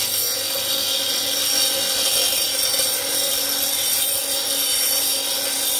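Parkside PDOS 200 C2 bench grinder, a 200 W induction-motor double grinder, with a piece of metal held against its coarse 36-grit wheel: a steady, hissing grind of metal on the spinning stone that covers the motor's hum.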